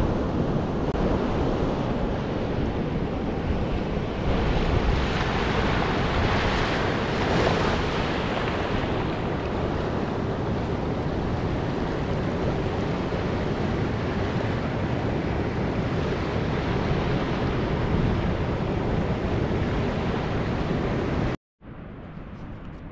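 Pacific Ocean surf washing in over a rocky beach: a steady rush of waves that swells a few seconds in, then breaks off near the end to a quieter, steady rush.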